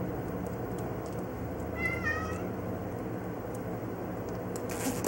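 A kitten meows once, a short wavering call about two seconds in, over a steady low hum in the room.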